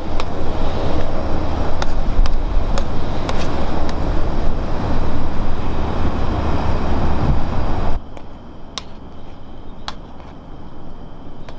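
Steady roar of a small gas canister stove burning under an aluminium pot, with a spoon clicking against the pot now and then as egg is stirred into simmering broth. About eight seconds in the roar drops away suddenly, leaving a quieter stretch with a few sharp spoon clicks.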